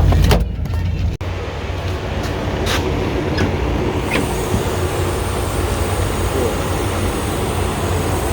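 1984 Chevy Caprice's 305 small-block V8 idling steadily with a rapid ticking, which the owner puts down to a bad exhaust manifold gasket or a cracked manifold.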